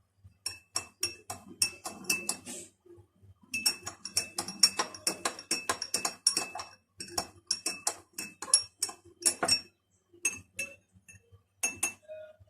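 A spoon stirring honey into a drink in a glass cup, clinking rapidly against the glass, several clinks a second, each with a brief ring, with a few short pauses.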